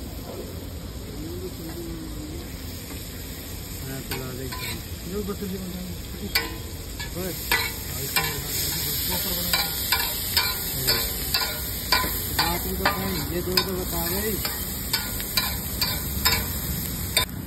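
Butter and chopped onion, tomato and capsicum sizzling on a large flat iron griddle, with a steel spatula scraping and tapping against the iron. The tapping starts about six seconds in and comes about twice a second, and the sizzling grows louder.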